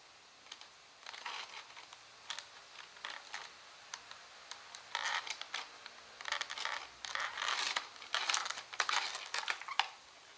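Hands handling small plastic objects: irregular crinkling and light clicks that come in clusters, busiest in the second half.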